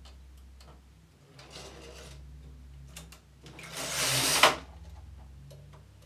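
Knitting machine carriage pushed across the needle bed, a rasping slide. It is loudest about four seconds in and ends with a sharp clack.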